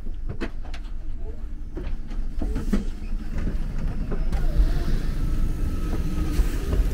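Low steady rumble of a stopped TGV high-speed train, with clicks and knocks of footsteps and luggage in the first few seconds. A thin steady whine comes in about halfway through as the open door leads onto the platform.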